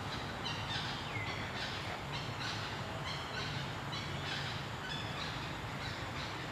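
Birds chirping in short, quickly repeated high notes, a few each second, over a steady low background rumble.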